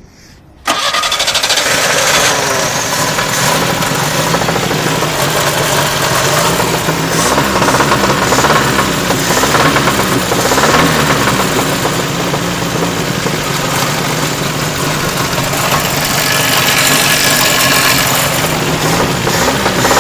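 An engine catches abruptly just under a second in and keeps running loudly and steadily with a knock. The owner asks whether it could be the pistons hitting the cylinder head.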